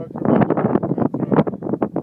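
Wind buffeting the microphone in rapid, irregular gusts.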